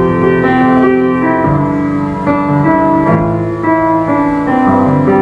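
Piano played slowly, with held chords changing every second or so.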